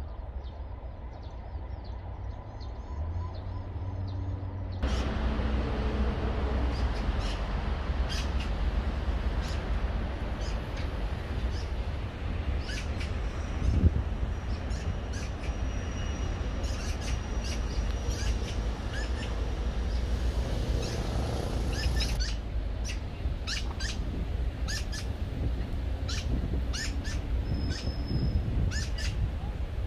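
Small birds chirping and calling outdoors, many short high chirps over a steady low rumble of outdoor ambience. The ambience gets louder about five seconds in, and a single sharp knock comes about fourteen seconds in.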